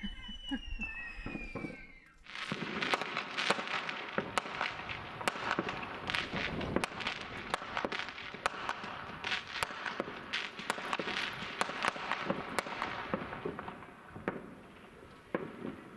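Fireworks crackling and banging in a dense run of sharp reports, thinning to scattered pops near the end. It opens with a falling, drawn-out tone that stops suddenly about two seconds in.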